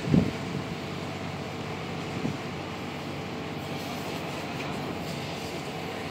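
Fishing boat engine running with a steady drone as the boat motors into harbour. A gust of wind hits the microphone just at the start.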